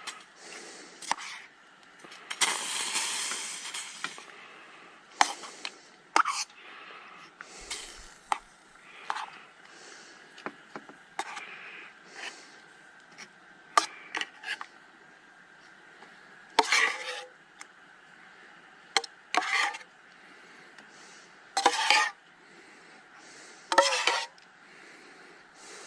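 A metal spoon scraping and knocking against a cooking pot and plate as turkey and gravy are dished out, in a run of short clinks and scrapes, with a hissing stretch about three seconds in.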